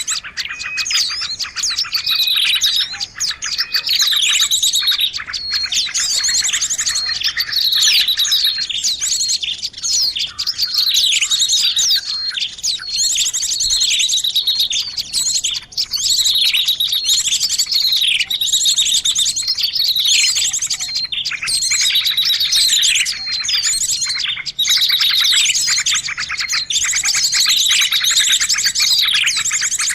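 Songbird song runs on without a break: busy chirps and fast high trills, with a falling whistled phrase repeated about once a second.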